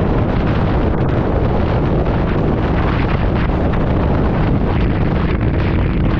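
Heavy, steady wind noise buffeting the microphone of a Harley-Davidson V-Rod cruising at road speed on a wet road, with the bike's V-twin engine running evenly underneath.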